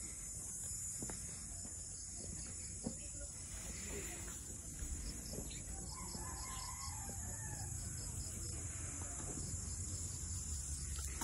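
Distant bird calls, one drawn-out wavering call about six seconds in, over a steady high-pitched insect drone and a low rumble.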